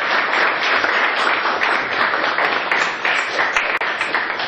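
Audience applauding: many hands clapping together, loud and steady.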